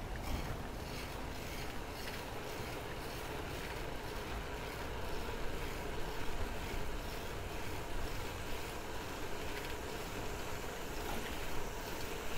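Steady wind rush over the microphone and tyre noise as a mamachari city bicycle rolls along an asphalt street, with a low rumble.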